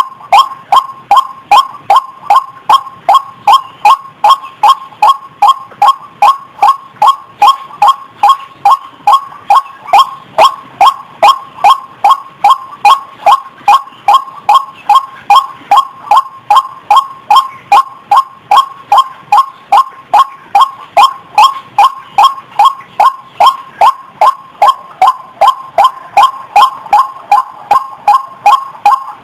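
White-breasted waterhen (ruak-ruak) calling: a loud, unbroken run of repeated 'kwak' notes, about three a second, in a steady rhythm. This is the bird's territorial call as used in a lure recording to draw waterhens out of cover.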